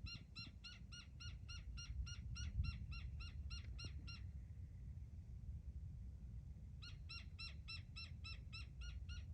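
A bird giving a long run of evenly spaced harsh call notes, about three or four a second, stopping for a couple of seconds, then starting a second run, over a low rumble.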